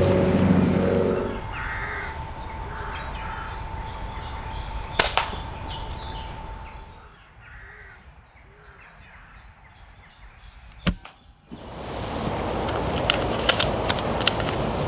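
Two sharp cracks about six seconds apart, typical of shots from a Reximex Pretensis PCP air rifle, with a songbird singing short repeated phrases in between. Wind noise comes up near the end.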